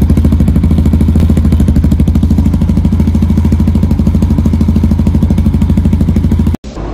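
Yamaha XT660R's 660cc single-cylinder engine running steadily through a Delkevic exhaust with its baffles in, giving an even, rapid thud of exhaust pulses. It cuts off suddenly near the end.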